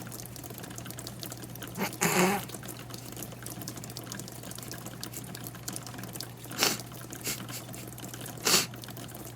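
Rain falling steadily with water dripping, and a few short louder sounds about two, six and a half and eight and a half seconds in.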